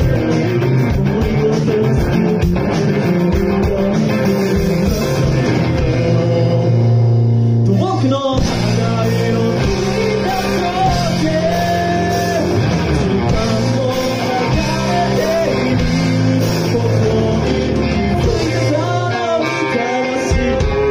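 Three-piece rock band playing live: electric guitar, bass guitar and drum kit, with the lead singer singing over them.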